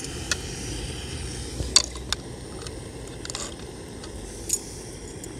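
Several sharp clicks and light knocks as a portable gas canister stove and its frying pan are handled and adjusted, over a steady low hiss.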